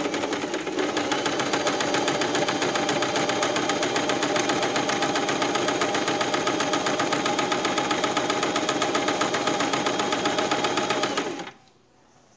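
Portable electric sewing machine running steadily, stitching a decorative stitch along a fabric edge with a fast, even rhythm. It stops suddenly about a second before the end.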